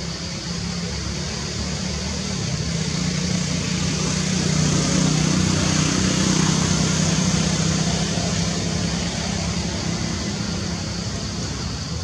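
A passing motor vehicle: a low engine hum that swells about halfway through and then fades, over a steady high-pitched hiss.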